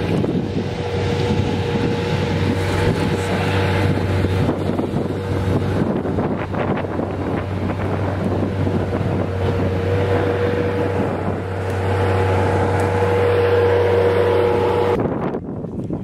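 An engine running steadily at a constant speed, with some wind on the microphone; it cuts off near the end.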